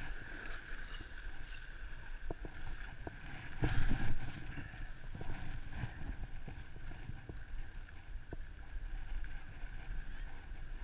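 Skis sliding and scraping over groomed piste snow, with wind rushing over the microphone; the rush swells louder about four seconds in, and a few faint clicks sound through.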